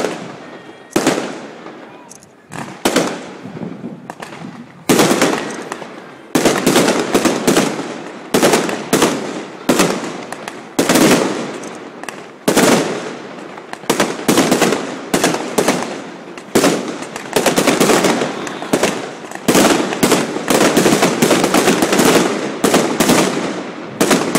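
Fireworks display: aerial shells bursting in loud bangs, each dying away in an echoing tail. A few bangs about a second apart at first, then from about five seconds in a dense barrage of bangs and crackling.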